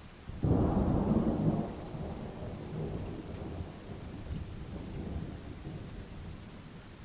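A thunderclap in heavy rain: about half a second in a loud crack of thunder breaks over the steady hiss of the rain, then rumbles on low and slowly fades over several seconds.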